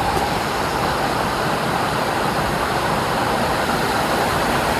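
Steady rushing of a waterfall, an even wash of noise with no change.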